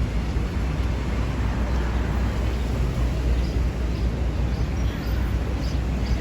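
City street ambience: a steady low rumble of traffic, with a few faint ticks near the end.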